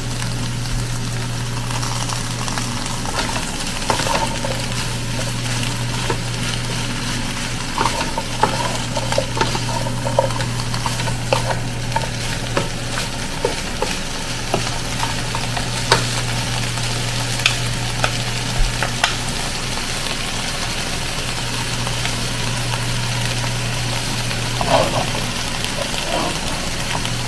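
Chicken and vegetables sizzling in a nonstick wok while a wooden spatula stirs them, with frequent short scrapes and taps of the spatula against the pan. A steady low hum runs underneath.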